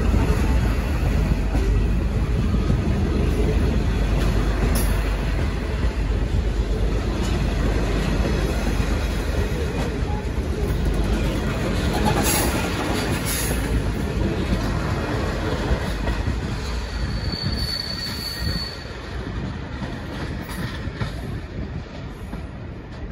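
Diesel-hauled passenger train rolling out of the station, its wheels and carriages rumbling and clattering over the track and fading steadily as it pulls away. A brief high-pitched wheel squeal sounds late on.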